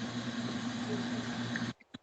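Steady hiss with a low, even hum, typical of a doorbell camera's microphone, cutting off suddenly near the end.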